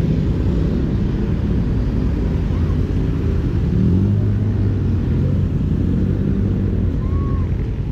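Kawasaki parallel-twin motorcycle engine running under way, with an aftermarket slip-on exhaust, and wind rushing over the microphone. The engine note shifts in pitch about halfway through, then holds steady.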